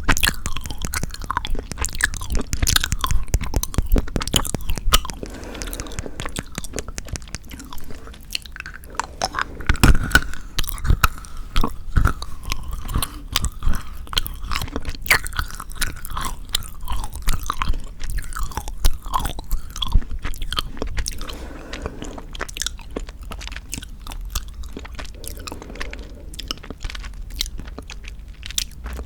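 Close-miked chewing of chocolate: many irregular, crisp mouth clicks and crunches as pieces are bitten and chewed.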